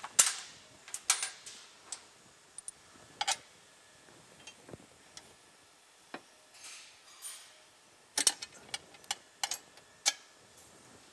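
Irregular sharp clicks and light knocks of metal hardware being handled and fitted onto a snowmobile's front end, with a couple of soft rustles midway and a quicker run of clicks near the end.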